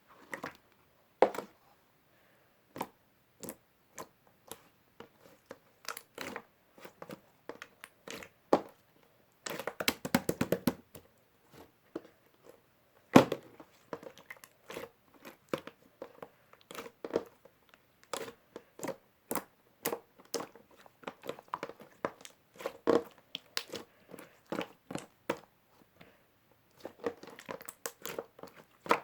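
Close-up handling of something crinkly, such as a wrapper or packaging, with scattered sharp clicks and taps and a dense burst of crinkling about ten seconds in.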